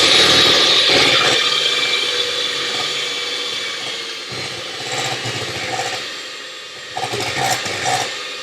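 Electric kitchen blender running and crushing ingredients. It is loudest at first, eases off through the middle, picks up briefly near the end, then winds down.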